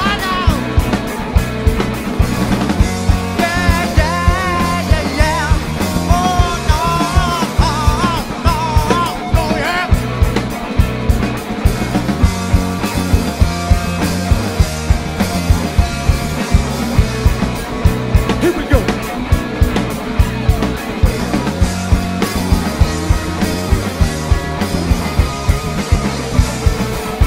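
Live rock band playing: a drum kit keeping a steady beat, with electric guitars and bass guitar, and a wavering melody line over the top in the first third.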